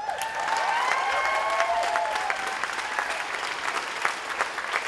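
Crowd applauding steadily, with a few voices cheering and whooping over the clapping in the first two or three seconds.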